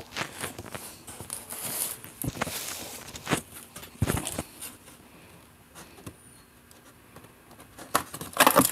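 Scissors slitting packing tape along the seam of a cardboard box: scattered snips, scrapes and rustles, a sharp knock about four seconds in, and a louder burst of tearing and rustling near the end.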